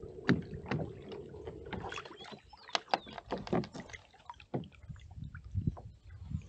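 Kayak being paddled: water moving around the paddle and hull, with irregular clicks and knocks.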